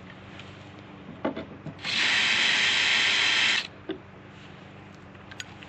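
Cordless drill-driver running in one burst of about two seconds, backing a screw out of a wooden nest-box panel, with a few light knocks before and after.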